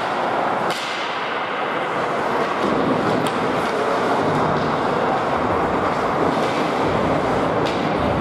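Ice hockey game noise in a rink: a steady wash of skating and crowd sound with three sharp knocks of stick and puck play.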